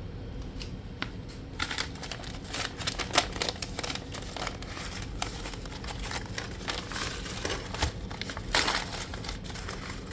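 Rustling and a rapid run of small clicks as a lock pick set and its packaging are handled and sorted, with a sharper knock about three seconds in.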